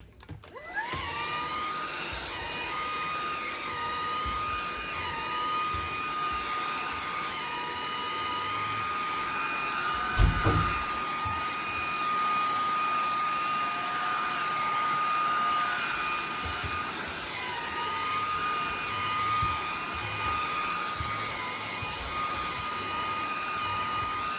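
A vacuum cleaner switching on, its motor whining up to speed within the first second, then running steadily with a high whine as it is used to vacuum a Shiba Inu's coat. The suction note wavers up and down throughout, and there is a low thump about ten seconds in.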